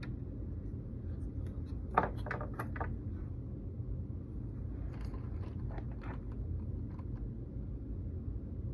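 A few short clicks and rattles of small hard objects being handled, in two clusters about two seconds and about five seconds in, the first click the loudest, over a steady low hum.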